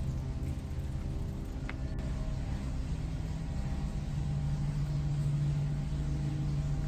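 Low, sustained droning background music with a rumbling bass, swelling slightly about four seconds in.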